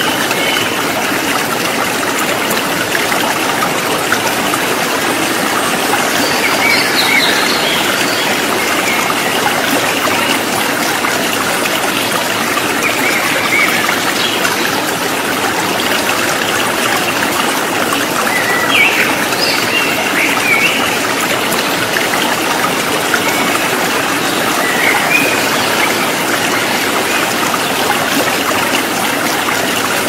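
Shallow stream rushing steadily over rocks, with a handful of short high chirps from white-eyes (pleci) scattered through it.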